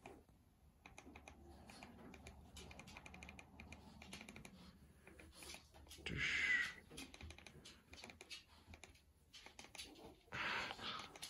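Faint, repeated clicks of a TV remote control's buttons being pressed to move across the on-screen keyboard. Two short, louder hissy sounds come about six seconds in and near the end.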